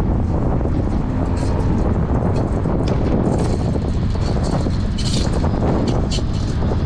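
Wind rushing over the microphone of an action camera on a moving bicycle, with steady road noise and scattered short clicks and rattles.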